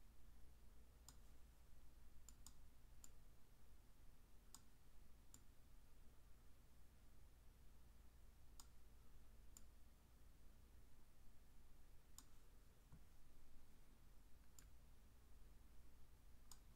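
Faint computer mouse clicks, about a dozen scattered irregularly with some in quick pairs, over a low steady hum of near-silent room tone.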